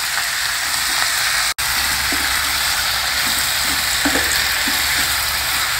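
Sliced brinjals sizzling as they fry in oil with onions in a stainless steel pan, stirred with a wooden spatula. The sound cuts out briefly about one and a half seconds in.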